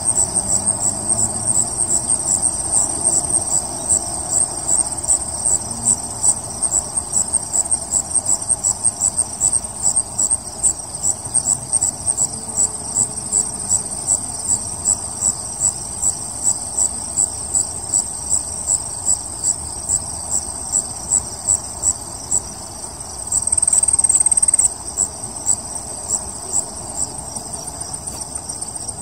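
Insects chirping in a fast, even high-pitched rhythm. Near the end, one trills without a break, louder, for about a second.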